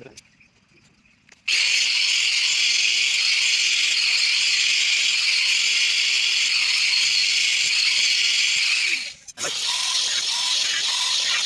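Handheld electric angle grinder with a cutting disc cutting through thin steel rods: a loud, steady, high-pitched grinding that starts abruptly about a second and a half in. It drops out for a moment near the end and then carries on.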